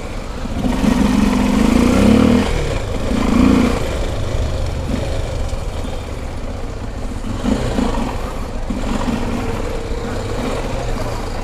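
Honda XR250 Tornado's single-cylinder motorcycle engine running at low speed in slow traffic, with the revs rising briefly about a second in and again a little later, over the rumble of surrounding traffic.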